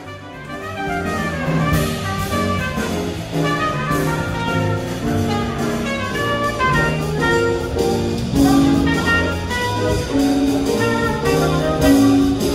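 Small live jazz band playing, a trumpet leading the melody over a drum kit with steady cymbal strokes.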